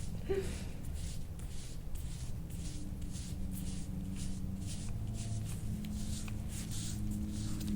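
Soft-tissue scraping tool stroked over skin again and again, a soft brushing rasp at about two strokes a second.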